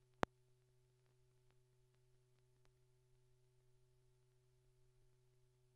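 Near silence: a steady low hum with a few faint higher tones, one sharp click about a quarter of a second in, and faint scattered ticks after it.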